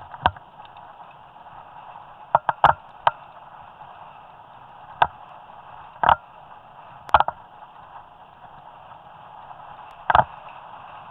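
Mountain bike rolling fast down a rough forest trail, with a steady rush of tyre and wind noise. Sharp, irregular knocks and clatters come as the bike hits roots and rocks.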